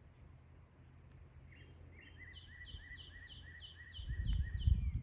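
A small bird singing a run of short falling chirps, about three a second, starting about a second and a half in, with a thin steady high tone above them. Under it all is a low outdoor rumble that swells louder near the end.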